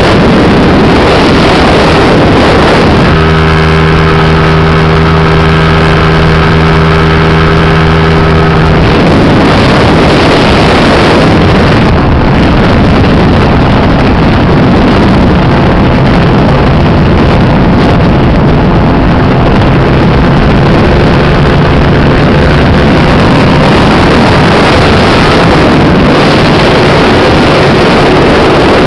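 Scooter engine running at a steady speed under heavy wind buffeting on the microphone; the steady engine note stands out clearly for several seconds a few seconds in, then sinks back under the wind noise.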